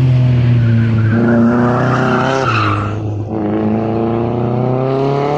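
Race car driven hard through the bends, its engine note climbing as it accelerates. The engine drops off sharply about two and a half seconds in, then climbs again. Tyre squeal hisses under the engine in the first half.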